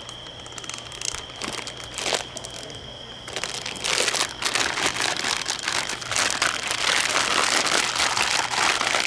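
Plastic zipper bag holding meat pieces and marinade, crinkling as it is shaken and kneaded by hand. Quiet with a few light clicks at first, then continuous loud crinkling from about three seconds in.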